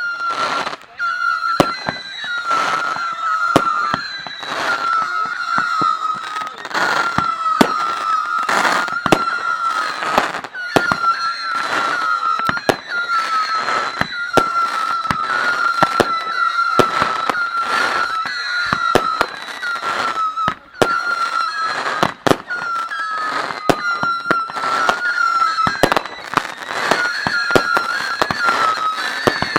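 Fireworks going off: a rapid run of sharp bangs and cracks, often more than one a second, over a steady high whistle.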